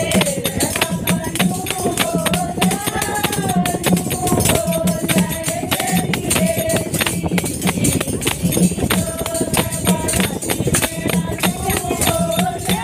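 A Hindi devotional bhajan in progress: a sung melody over a steady rhythm of hand-held clappers struck on the beat, with a repeating low drum-like pulse underneath.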